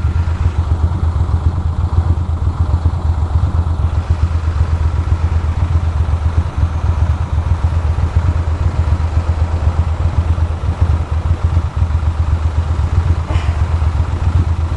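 Ducati Monster 620's air-cooled V-twin engine running steadily at low revs, with no revving, as the motorcycle moves slowly in traffic.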